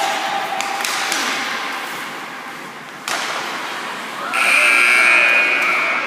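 A sharp knock about three seconds in, then a loud, shrill steady tone that starts a little after four seconds and lasts under two seconds.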